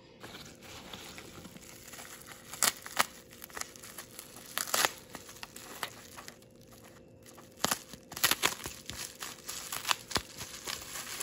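Plastic bubble wrap crinkling and foam packing peanuts rustling as a hand digs through a cardboard box, with frequent sharp crackles of the wrap and a short lull a little past halfway.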